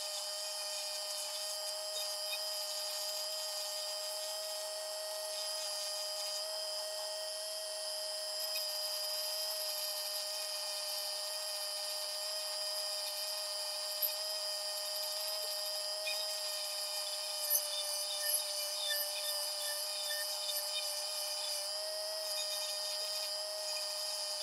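Dremel rotary tool spinning a Kutzall carbide burr against a small wooden rose part, a steady high whine mixed with the rasp of the burr cutting wood. A few sharper scratches come in the second half as the burr bites.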